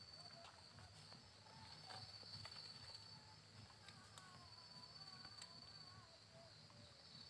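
Near silence, with a faint, steady, high-pitched trill from a night insect running throughout.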